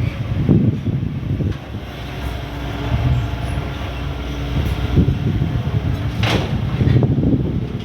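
Excavator's diesel engine running with a heavy low rumble while it digs mud, with a few sharp clanks, about half a second in and again near five and six seconds in.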